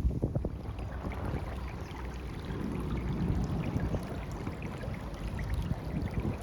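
Wind rushing and buffeting the microphone as a steady low rumble, with scattered faint crackles above it.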